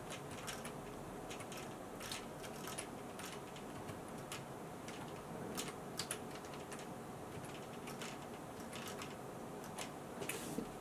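Computer keyboard keys being typed, a faint run of irregular clicks.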